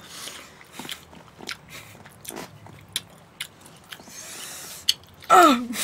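Eating sounds: chewing with scattered sharp clicks and taps of plastic dishes and chopsticks.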